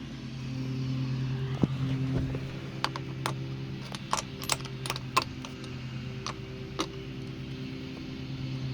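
A series of sharp metallic clicks and taps, mostly in the middle, as steering-wheel hardware is handled, over a steady low hum.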